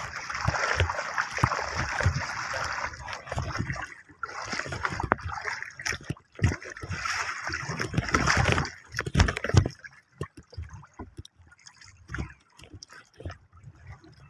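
Sea water splashing and sloshing against a small wooden outrigger boat, with irregular low knocks. The splashing comes in two louder spells and dies down over the last few seconds.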